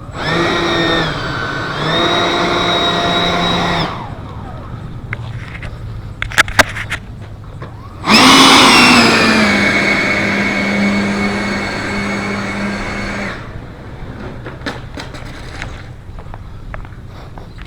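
Radio-controlled 3D-printed L-39 model jet's motor and fan whining under throttle while taxiing. A first burst of about four seconds dips in pitch midway. About eight seconds in comes a louder burst that starts high, settles to a steady lower whine and cuts off a few seconds later. A few sharp clicks fall between the two bursts.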